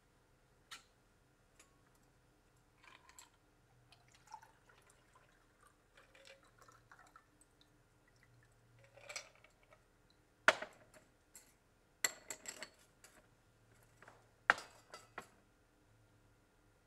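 A cocktail being mixed: faint liquid pouring and dripping with light clinks of glassware. In the second half comes a run of sharp glass clinks and knocks, the loudest about ten and fourteen seconds in.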